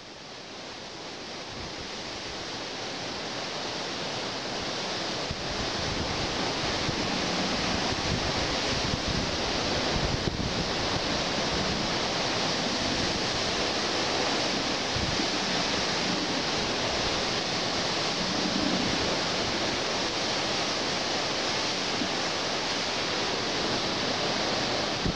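Steady rush of sea surf mixed with wind, fading in over the first few seconds and then holding even.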